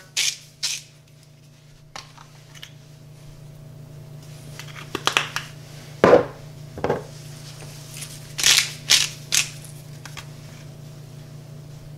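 Salt shaken from a shaker over a bowl of dip ingredients: a series of short shakes, the last three about half a second apart. A steady low hum runs underneath.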